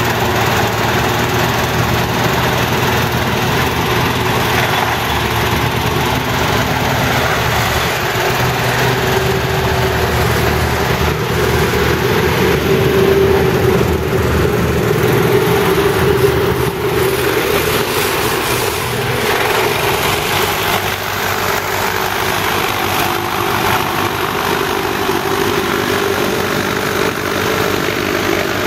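Small hovercraft's engine and caged air propeller running steadily, a little louder about halfway through.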